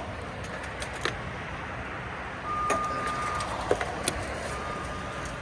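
JLG boom lift's engine running steadily, with a few sharp clicks and a steady electronic beep that sounds twice in the second half.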